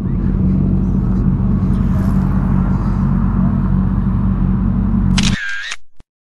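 Motorcycle engine idling steadily with a low, even rumble. Near the end a brief higher-pitched sound cuts in, then the audio cuts off abruptly to silence.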